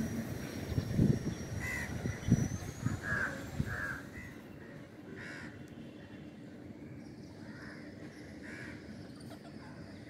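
A crow cawing, a series of short harsh calls spaced about a second apart, with low buffeting noise in the first few seconds.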